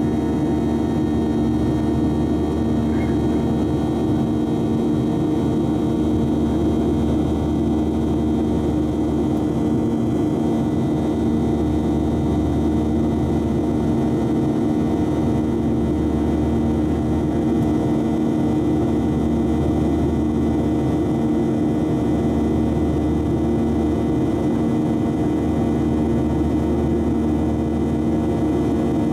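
Cabin noise of a Boeing 737-700 in flight, heard from a window seat over the wing: the CFM56-7B turbofan engines and airflow making a steady drone with several held humming tones, unchanging throughout.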